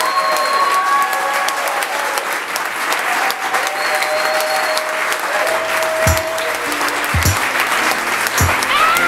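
Wedding guests applauding and cheering just after the couple is pronounced husband and wife. About halfway through, music with low bass notes comes in under the clapping.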